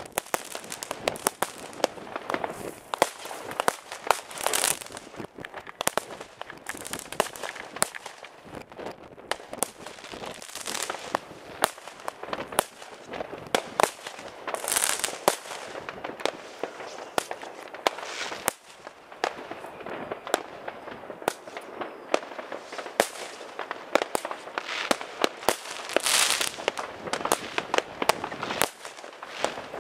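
New Year's Eve fireworks and firecrackers going off all around: a dense, irregular barrage of sharp bangs, with three swells of crackling hiss.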